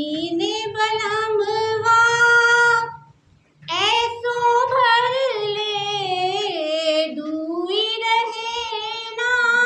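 A woman singing a love song in the Purbi (eastern Hindi) dialect, solo with no instruments: two long phrases of held, wavering notes, with a short pause for breath about three seconds in.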